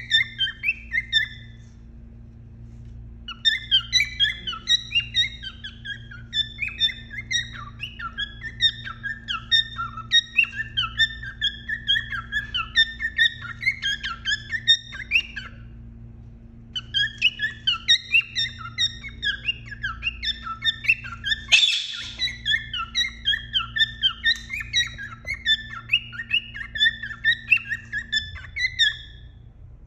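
Male cockatiel singing its courtship song to the hen in the nest box, the male's call to breed. It is long runs of rapid chirps and warbled whistles, broken by a short pause about two seconds in and another about halfway. A sharp click cuts in about two-thirds of the way through, over a steady low hum that stops near the end.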